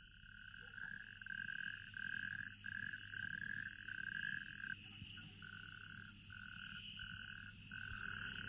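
Faint night-ambience sound effect of a high trilling animal call, held almost unbroken at first and then pulsing in runs about half a second long from about five seconds in, over a low tape hum.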